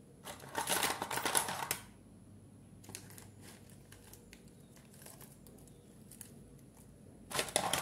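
Rustling and light clicking of small things being handled and searched through: a burst of rustling in the first two seconds, scattered faint clicks after it, and another short rustle near the end.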